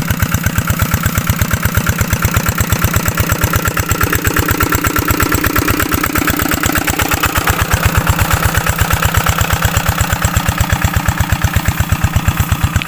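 A small engine running steadily at idle with a fast, even chugging beat.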